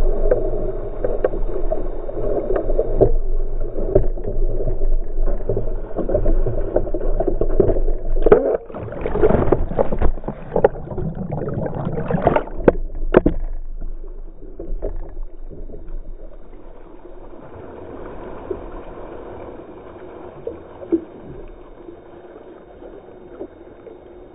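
Fast river rapids rushing and slapping against a plastic kayak's hull, muffled by a GoPro's waterproof housing. About a third of the way in, the kayak capsizes: there are loud splashes and tumbling, churning water as the camera goes under. After that the water rushes more quietly and steadily.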